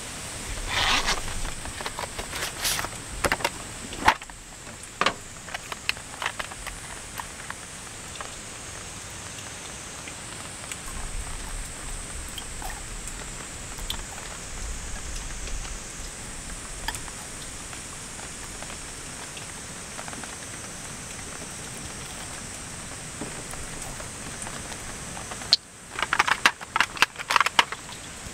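Steady rain hiss, with clicks and knocks of items being handled on a camp table in the first few seconds and a quick run of sharp clicks near the end.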